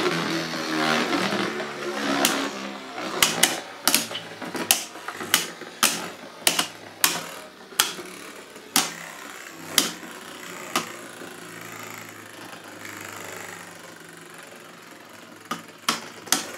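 Z Achilles and Maximum Garuda Beyblade Burst tops whirring as they spin in a plastic stadium, with sharp clacks as they hit each other, about one or two a second, for several seconds. The clacks stop for a few seconds of steady whirring, then start again near the end.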